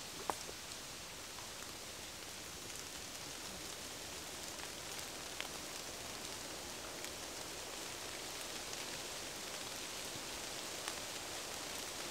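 Steady rain falling in a forest: an even hiss with a few single drops ticking now and then.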